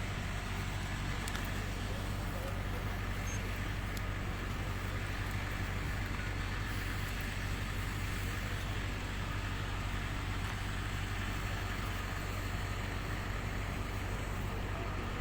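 Steady low hum of an idling engine under an even hiss, unchanging throughout.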